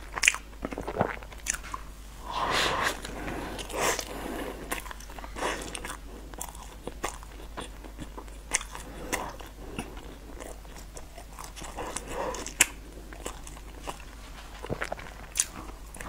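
A person biting and chewing crunchy food close to a clip-on microphone, with sharp crunches and mouth clicks at irregular intervals and a few longer stretches of chewing.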